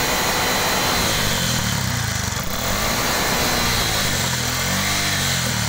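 Bajaj Maxima Z auto-rickshaw's single-cylinder engine running on LPG, revved up and down a few times. It runs at full throttle without jerking now that its gas regulator (LPR) has been rebuilt.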